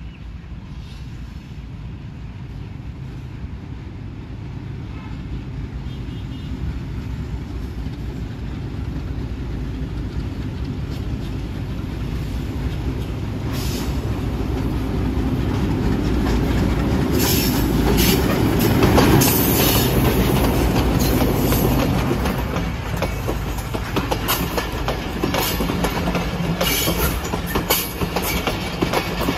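Diesel-hauled passenger train running into the station. A low engine drone and wheel noise grow steadily louder to a peak about 19 seconds in, then ease off, with rapid clicking of wheels over rail joints through the second half.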